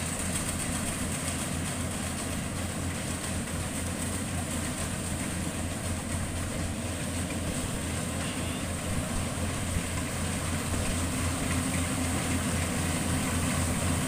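Yanmar combine rice harvester's engine running steadily as it harvests, a continuous low drone that grows somewhat louder near the end as the machine comes closer.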